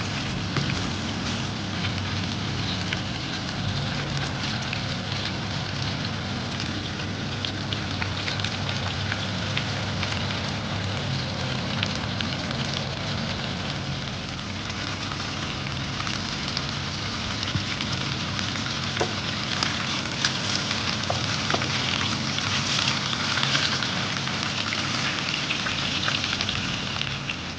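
Chicken thighs sizzling in hot oil and pan juices in a frying pan: a steady hiss with frequent small crackling pops, somewhat louder in the second half.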